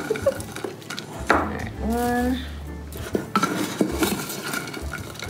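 Metal clinks and knocks of a large tin can and utensils against a stainless steel saucepan as freeze-dried chicken pieces are tipped and shaken into the pot, with a brief hum from a person about two seconds in.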